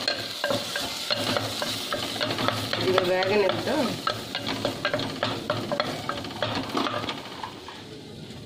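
Green chillies and curry leaves sizzling in bubbling melted milk cream while a wooden spatula stirs and scrapes the pot in quick repeated strokes. A brief spoken word comes about three seconds in, and the sound dies down near the end.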